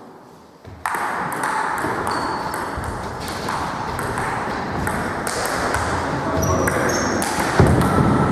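Table tennis rally: the ball being struck back and forth, over a loud, dense hall noise that starts suddenly about a second in, with a louder hit or knock near the end.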